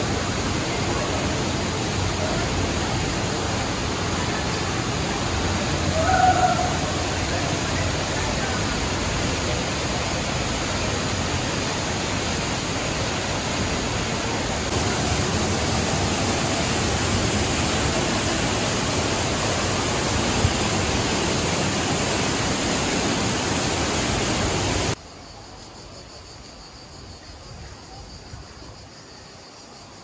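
Waterfall plunging into a narrow rock gorge: a loud, steady rush of falling water. About 25 seconds in it cuts off suddenly to a much quieter background.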